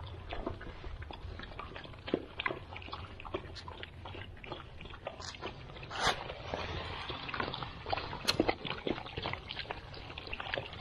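Several Central Asian Shepherd puppies eating dry kibble from a metal tray: a steady stream of quick crunches and clicks as the pellets are chewed and pushed about the tray.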